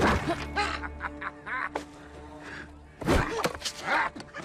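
Film soundtrack: a low, sustained score drone under a sharp hit at the start and a single knock a little under two seconds in, with short strained cries or grunts early on and again over the last second and a half.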